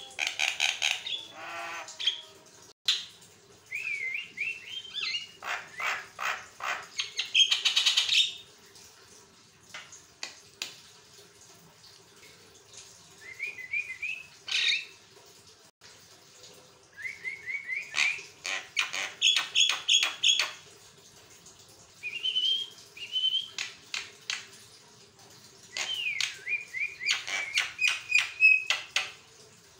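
Javan myna singing in repeated bouts of rapid clicking chatter, harsh notes and short rising whistles, with brief pauses between bouts.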